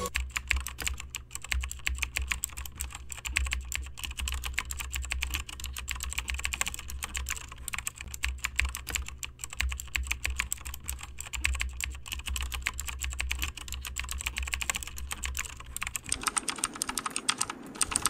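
Fast typing on an Acer laptop's keyboard: a rapid, continuous run of plastic key clicks.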